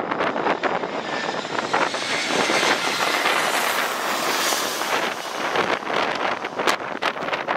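Airbus A320-214 jet airliner with CFM56 turbofans passing low overhead on final approach, its engine noise swelling to a peak about halfway through and then falling away as it heads for touchdown. Wind gusts buffet the microphone, more near the end.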